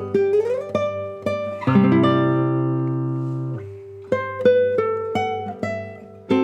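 Solo classical guitar playing slow plucked notes and ringing chords, with a slide up between two notes about half a second in.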